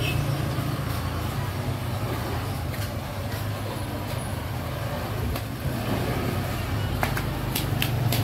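Street traffic noise: a steady low rumble of motor vehicles moving along the street, with a few sharp clicks near the end.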